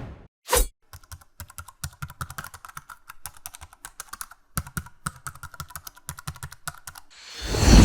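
Computer keyboard typing: a quick, uneven run of key clicks lasting about six seconds. A short swish comes before it, and a whoosh swells up near the end.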